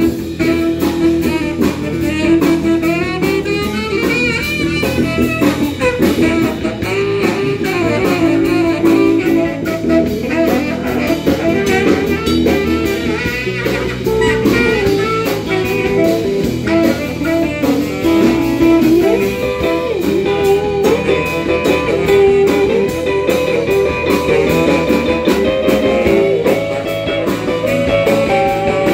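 Live blues band playing an instrumental passage: saxophone lines over electric guitar, bass guitar and drum kit.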